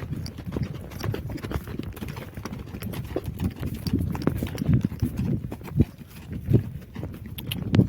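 Hoofbeats of a horse being ridden: a continuous run of low, uneven hoof thuds.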